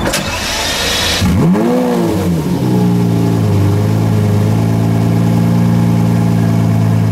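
Lamborghini Murciélago LP670-4 SV's naturally aspirated V12 starting up: about a second of cranking, then the engine catches with a quick rise and fall in revs and settles into a steady idle.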